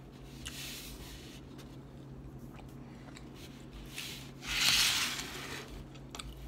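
Plastic salad clamshell being handled and slid across the table into place: a short, loud rustling scrape about four and a half seconds in, after softer handling rustles. A low steady hum lies underneath.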